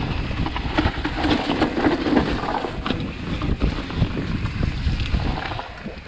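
Wind buffeting a mountain-bike rider's camera microphone at speed on a dirt flow trail, mixed with tyre noise and the clatter of the bike over bumps. It dies down a little near the end.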